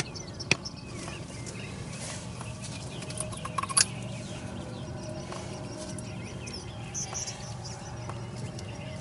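A few sharp metallic clicks and knocks of hand tools on the engine as the oil pressure switch is worked loose with a socket, over a steady low hum and faint bird chirps.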